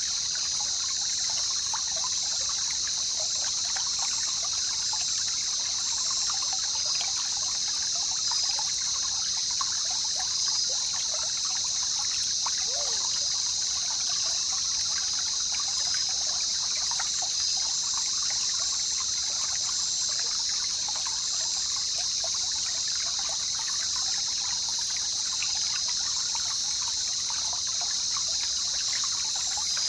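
River water trickling and babbling steadily, with a constant high-pitched hiss over it.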